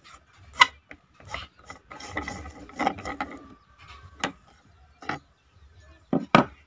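A camouflage-wrapped shroud tube being twisted and slid off a homemade air gun's barrel: rubbing and scraping, with scattered sharp clicks. Two sharp knocks come near the end.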